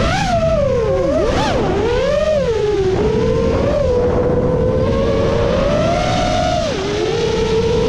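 7-inch FPV quadcopter's Emax Eco II 2806.5 brushless motors spinning HQ 7x3.5x3 three-blade props, whining as they follow the throttle. The pitch swoops up and down over the first three seconds, holds steady, then drops sharply near the end.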